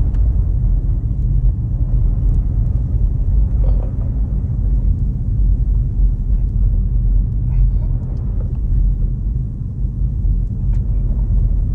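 Steady low rumble of a Jeep Grand Cherokee Summit with a Hemi V8, cruising on snow-covered road, with engine and tyre drone heard from inside the cabin.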